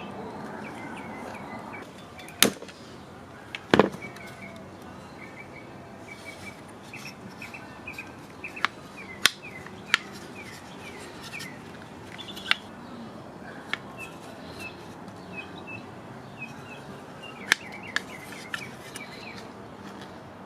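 Birds chirping repeatedly in the background, with scattered sharp clicks and snaps of hand work on small parts; the loudest two come a few seconds in.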